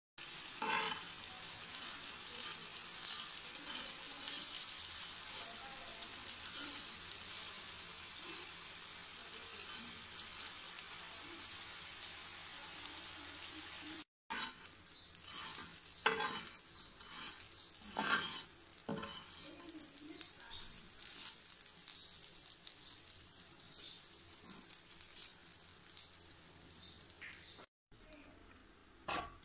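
Spice-coated beef cubes sizzling on a tawa: a steady frying hiss. In the second half there are occasional short scraping knocks from stirring.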